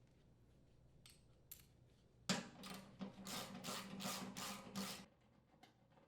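Socket wrench turning the blower motor mounting bolts out of a furnace blower housing: a sharp knock about two seconds in, then about seven quick, even strokes of metal working on metal.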